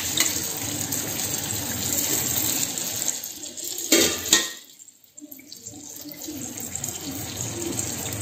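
Yu char kueh (Chinese fried dough sticks) sizzling and bubbling in deep hot oil in a steel wok. There is a sharp click at the start and another about four seconds in, and the sizzle drops out briefly at about five seconds before coming back.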